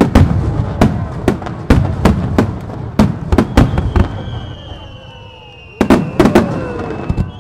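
Aerial firework shells bursting in quick succession, several sharp bangs a second for about four seconds, then a short lull with a thin steady high tone, and another cluster of bangs about six seconds in.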